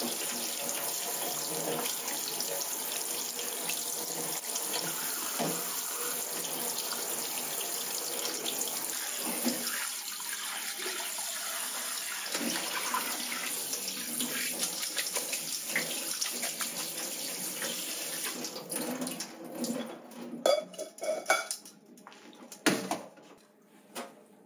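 Kitchen tap running steadily into a stainless steel sink while hands rinse sea squirt flesh under it and pour the rinse water through a colander. The water stops about three-quarters of the way through, followed by a few sharp knocks of stainless bowls and the colander set down on the steel sink.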